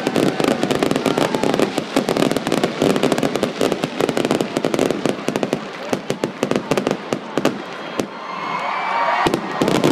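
Stage fireworks crackling: a dense run of rapid pops that thins out about six or seven seconds in, with a couple of last single pops. Crowd cheering and whistling starts to swell near the end.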